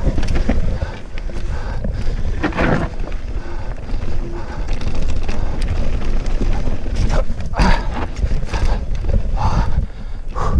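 Wind buffeting the microphone over the rumble of a Cube Stereo mountain bike riding fast down a dirt trail, its tyres on the dirt and its parts rattling over bumps. Sharper knocks and clatters come from time to time, a cluster of them in the second half.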